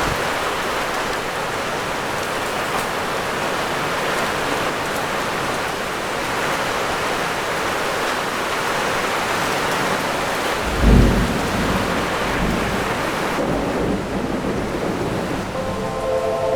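Steady heavy rain falling, with one brief low rumble of thunder about eleven seconds in. The rain turns duller near the end.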